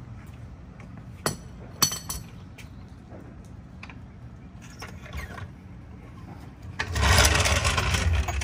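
A 3-ton Pittsburgh steel floor jack being lowered and pulled out from under the car: two sharp metal clinks from its handle, then its wheels rolling and rattling across the concrete for about a second and a half near the end.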